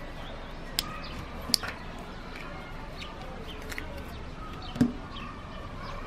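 Small folding pocket knife being handled: two sharp clicks, about a second and a second and a half in, as the blade is folded shut, then a louder click with a dull knock near the end as the knife is set down on a wooden table. Faint bird chirps in the background.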